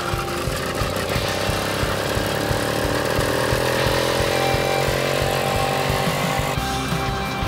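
Small two-stroke bicycle engine running steadily under way, driving the motorized bicycle along.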